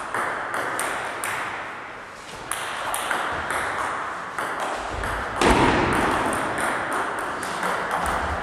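Table tennis ball clicking back and forth off the paddles and table in a rally, with a louder thud just past halfway.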